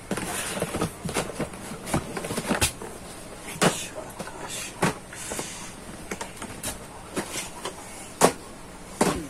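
Small cardboard boxes of printers being set down and stacked one on another: a run of irregular knocks and taps, the sharpest one about 8 seconds in.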